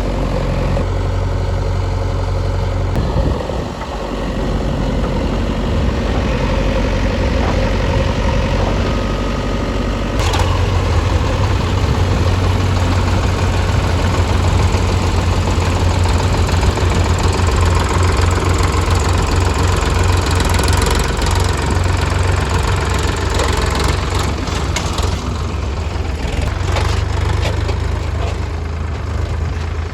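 Diesel engine of a JCB 3DX backhoe loader working while loading mud. The engine note rises under load about ten seconds in, with a sharp clunk at that moment and a few metallic clanks near the end.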